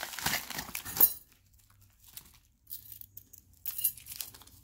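A small plastic bag crinkling for about the first second, then light metallic clinks of small metal pendants being tipped out and spread across a felt mat by hand, with a brighter cluster of clinks near the end.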